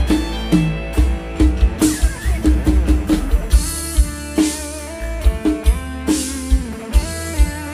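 Campursari band playing an instrumental passage, with drums on a steady beat, bass, and guitar and melodic lead lines over it.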